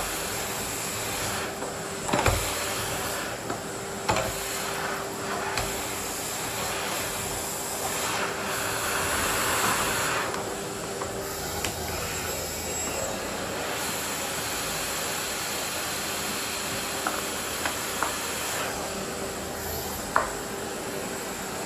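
Miele vacuum cleaner running, a steady suction rush over a constant motor hum, swelling louder for a couple of seconds around the middle as the nozzle moves, with a few sharp knocks of the nozzle against furniture or the floor.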